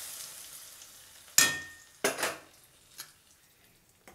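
Hot, freshly fried cashews tipped into simmering carrot kheer in a metal kadai: a sizzle that fades over the first half-second or so. Then a metal spoon stirs the kheer and clanks against the pan, sharply about a second and a half in and again at two seconds, with lighter knocks after.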